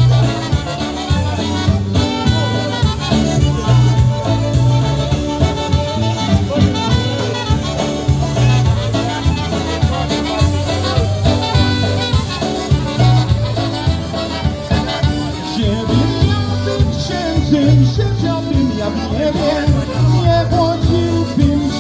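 A live polka band playing a polka, with a steady bouncing beat.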